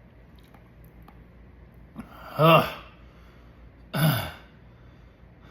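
A man makes two short throaty vocal sounds, each falling in pitch, about two and four seconds in, the first louder. They come as his throat burns from eating superhot chili peppers.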